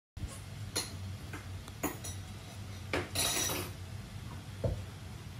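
Scattered light clicks and a brief rustle about three seconds in, as a long-haired Norwegian Forest Cat grapples with a person's hand, over a low steady hum.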